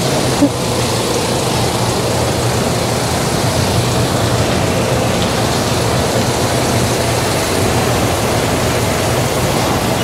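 Diesel semi-truck engine running at a low idle, a steady low drone under a hiss, as the tractor-trailer creeps backward close by.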